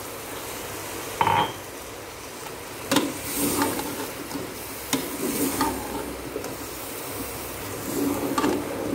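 Okra and tomato sizzling in a metal pot while being stirred with a spoon that knocks against the pot a few times.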